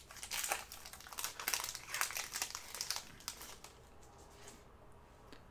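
Crinkling and rustling as trading cards and their plastic packaging are handled. The rustles are irregular and thin out after about three seconds.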